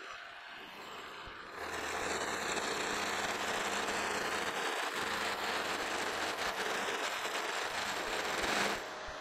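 Milling machine running a finishing end mill through a metal workpiece: about a second and a half in, the cutter engages and a steady, louder cutting noise with a low hum beneath it runs until it drops off shortly before the end.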